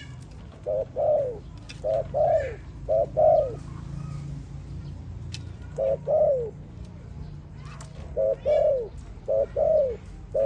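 Dove cooing: repeated two-part coos, each a short note followed by a longer falling note. Three come about a second apart, then after a pause one more, then after another pause a further run.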